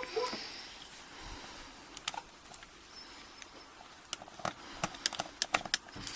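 Scattered light clicks and taps of small metal lock parts and tools being handled while a padlock is taken apart, coming in a few separate groups.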